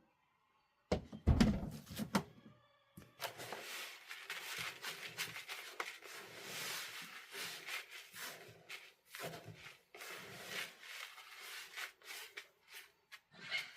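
A few heavy thumps about a second in, then about ten seconds of dry chicken feed rustling and rattling in a container as the feed is worked together with added spices.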